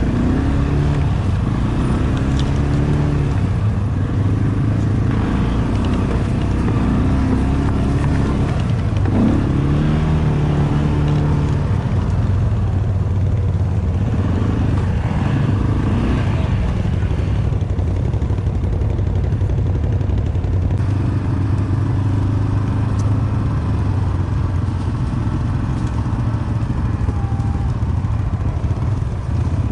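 ATV engine running under way, its revs rising and falling now and then.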